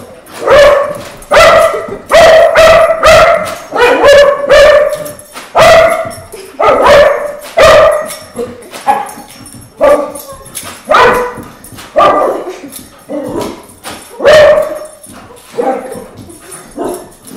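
Small dog barking and yipping over and over, about once a second, in agitation at a paper party blower; the blower's buzzy reed toots are mixed in with the barks.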